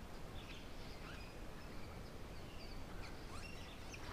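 Faint outdoor ambience: scattered short bird chirps and calls over a low, steady background rumble.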